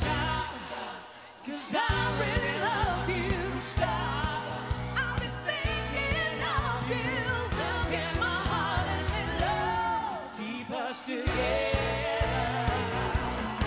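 Live pop music: a singer's voice over band accompaniment, the bass and drums dropping out briefly about a second in and again near eleven seconds.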